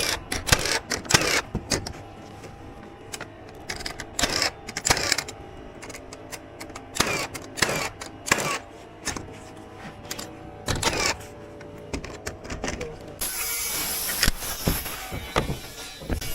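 House-framing work: a run of sharp knocks from nailing, spaced irregularly about a second apart, with a steady hiss for a couple of seconds near the end.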